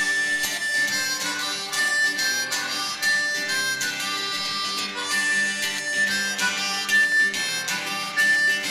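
Harmonica playing a melody of held notes over a strummed acoustic guitar, the instrumental opening of a folk/country song.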